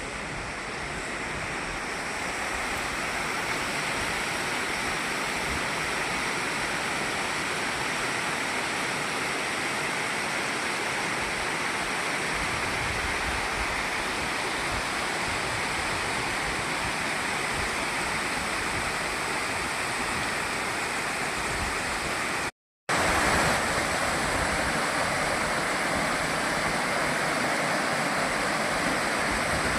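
Waterfall: a steady, unbroken rush of falling water. It cuts out completely for a split second about two-thirds of the way through, then comes back slightly louder.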